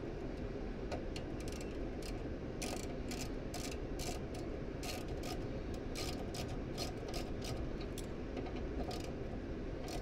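Gas furnace's blower running steadily in its cool-down cycle, while many quick, irregular metallic clicks and ticks come from hand-tool work on the gas valve's fittings.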